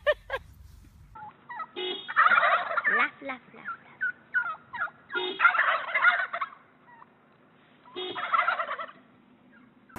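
Wild turkeys gobbling: three loud gobbles about three seconds apart, with short single calls between them.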